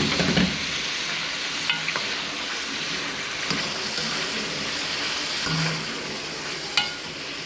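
Mutton liver masala sizzling in hot oil in a pan while being stirred, with a thump at the start and a few sharp clinks of the utensil against the pan.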